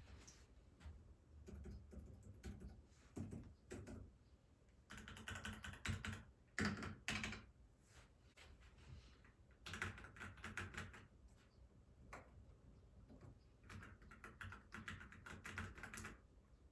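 Keychron K10 Pro mechanical keyboard being typed on: runs of rapid key clicks with short pauses between them.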